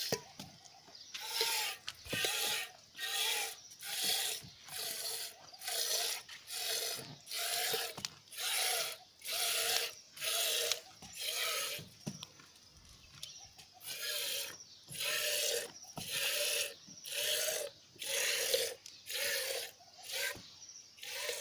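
Goat's milk squirting from a hand-squeezed teat into a steel pot: one hissing squirt with a metallic ring about every 0.8 seconds, in a steady rhythm, with a pause of about two seconds near the middle.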